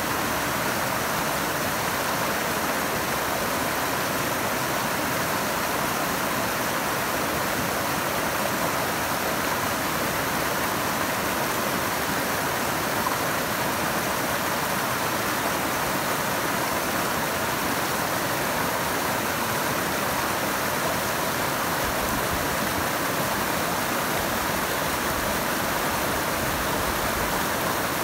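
Silt-laden glacial meltwater river rushing and churning over boulders in a steady, unbroken rush of water.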